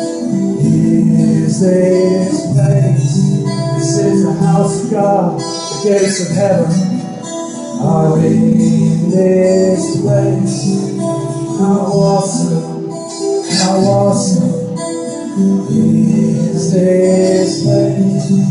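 Live instrumental break: an acoustic guitar strumming with an electric guitar playing along.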